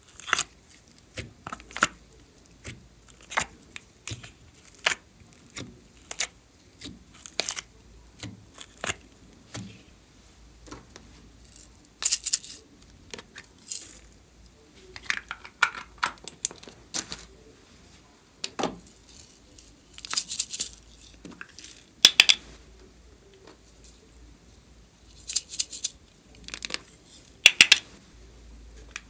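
Hands handling plastic slime containers and slime: scattered clicks and taps of plastic, with a few short crackling rattles as toppings such as sprinkles and beads go in.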